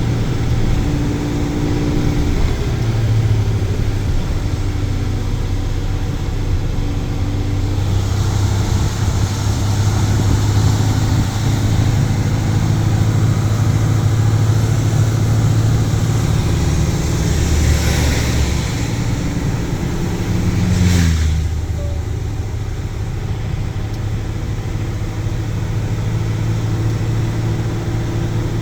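Car engine running steadily under constant road and tyre noise. Near the end a brief whoosh builds and passes, and the engine note then drops to a lower pitch.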